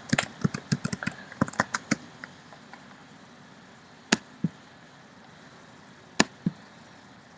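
Typing on a computer keyboard: a quick run of key clicks for about two seconds, then two pairs of sharp clicks, one about four seconds in and one about six seconds in.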